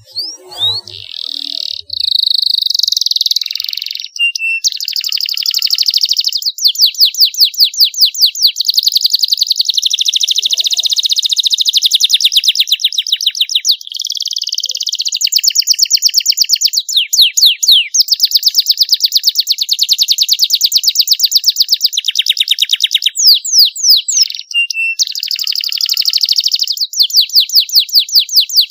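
Young domestic canary singing a long, unbroken, high-pitched song of fast trills and rolls of rapidly repeated notes, with a few sliding whistles among them.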